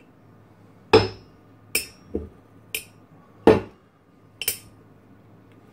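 A stainless steel pan and a small electromagnet knocking and clanking together and against a tabletop: about six sharp metallic knocks at uneven spacing, two of them louder than the rest.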